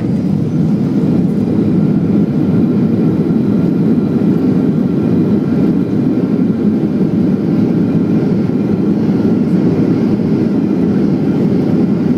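Cabin noise of a Ryanair Boeing 737-800 on its landing roll: the jet engines and rolling gear make a loud, steady, deep rumble that builds up over the first second and then holds.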